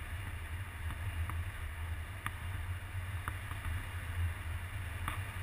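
Airflow buffeting the camera microphone in paraglider flight: a steady low rumble, with a few faint clicks.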